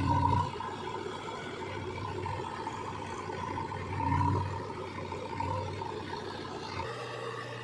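Diesel engines of a backhoe loader and tractors running, swelling louder briefly twice, at the start and about four seconds in. Near the end the sound changes abruptly to a steady low hum.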